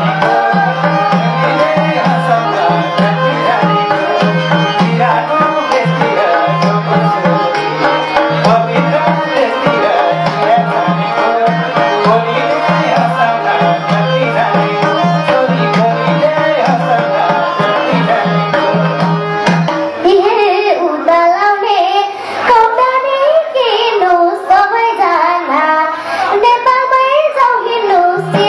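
Live Nepali song performance: a child singing into a microphone with a man, over hand drums and a steady low bass drone. About twenty seconds in the bass drops away and the melody leaps up and down more widely. The bass comes back near the end.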